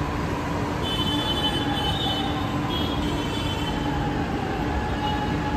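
Metro train running at a station platform: a steady rumble with a whine that slowly falls in pitch, and brief high squeals on and off.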